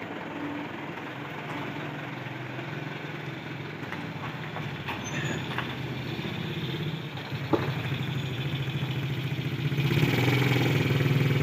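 Engines of a light truck and a pickup running at low speed as they drive off, a steady low drone that grows louder near the end.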